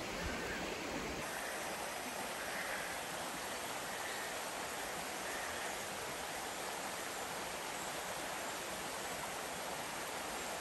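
Shallow, rocky woodland stream running over stones: a steady, even rush of water.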